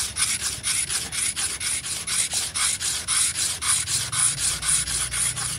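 Steel dowel-machine cutter blade rubbed back and forth on a wet whetstone in quick, even strokes, about four or five a second: the blade's edge being sharpened.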